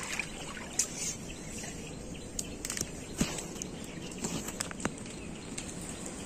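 Outdoor mangrove forest ambience: a steady background hiss with scattered short clicks and a few faint, brief chirps.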